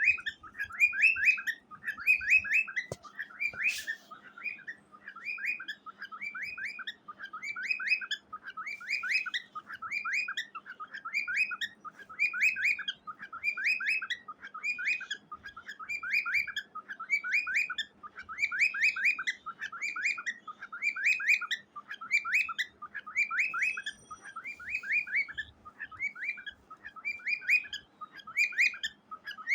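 Cockatiel chirping in quick clusters of short rising notes, one cluster about every second, repeated steadily. A brief click sounds about four seconds in.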